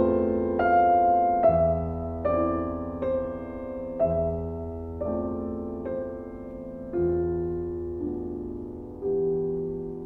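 Background piano music: a slow, gentle piece of struck chords that ring and fade, a new chord about every second over a low bass note renewed every couple of seconds.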